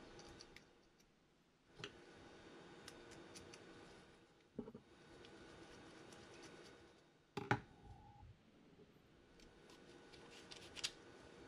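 Faint light metal clicks and taps as small screws and washers are fitted into a pit-bike clutch assembly and turned with a screwdriver. A few sharper knocks stand out, the loudest a little past halfway.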